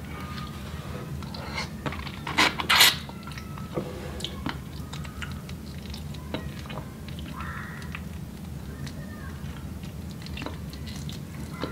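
Eating sounds and the crackle of a boiled shrimp's shell being peeled by hand, as small scattered clicks with two loud crackles about two and a half seconds in. A steady low hum runs underneath.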